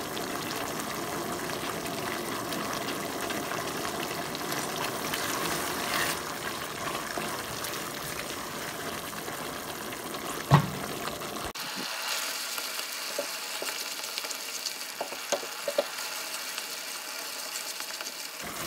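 Thick cornflour halwa mixture bubbling and sizzling in a nonstick pan as it is stirred with a silicone spatula, with one sharp knock about ten seconds in. A little past halfway the sound changes abruptly to a brighter hiss with small ticks.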